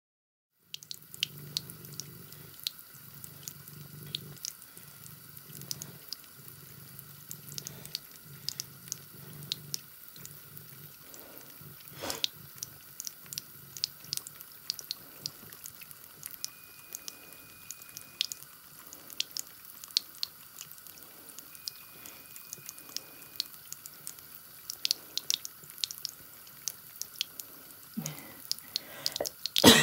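Thin stream of water running from a bathroom sink faucet, with a cat lapping at the stream in many small wet clicks. A louder knock comes near the end.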